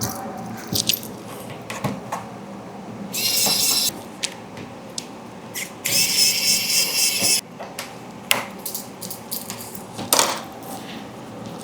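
Small electric screwdriver motor whining in two short runs, about a second and then about a second and a half, backing out the motor's mounting screws. Small metal clicks and taps of screws and tools being handled come between and around them.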